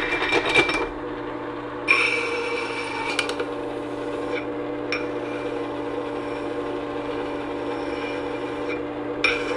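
Electric sharpening machine with a horizontal abrasive disc running with a steady motor hum, while a steel flathead screwdriver tip is ground against the spinning disc. The grinding comes as hissing, scraping passes: one about two seconds in, a longer one from about five seconds, and another near the end.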